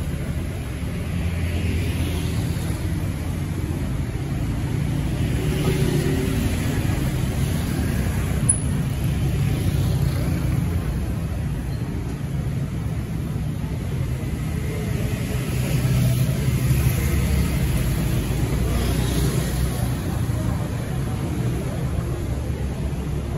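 Street traffic on a city road: vehicles passing with a steady low rumble that swells as they go by, and a single sharp click partway through.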